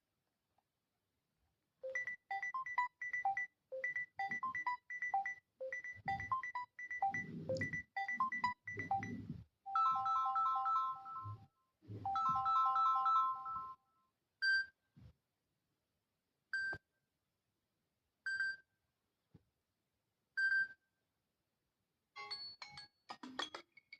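Samsung Galaxy A10s ringtones played one after another. First comes a quick repeating melody of short notes, then a different chiming tune, then a single short tone about every two seconds, and another tune starts near the end.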